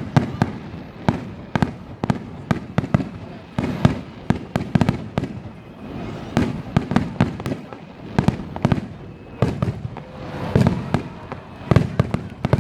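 Aerial fireworks bursting in a rapid barrage, several sharp bangs a second overlapping one another: the finale of a fireworks display.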